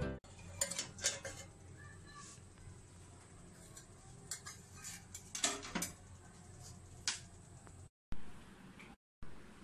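Faint, scattered clinks and knocks of metal cookware as an aluminium lid is lifted off a cake tin sitting inside a larger steel pot, over a low steady hum.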